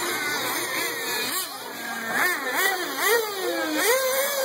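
Small nitro engines of 1/8-scale RC truggies racing around a dirt track, their high-pitched whine rising and falling again and again as they accelerate and brake.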